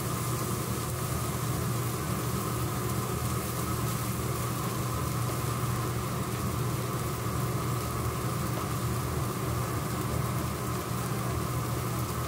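Shredded cheese sizzling on a hot griddle: a steady hiss over a constant low machine hum.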